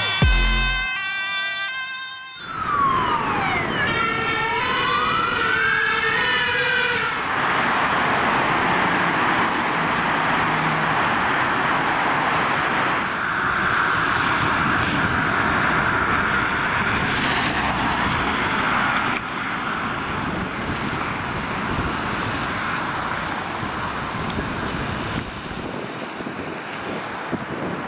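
Intro music cuts off about two seconds in, then an emergency vehicle's wailing siren sweeps down and back up in pitch while an air horn sounds. The siren then carries on over steady city traffic noise as ambulances pass on emergency runs.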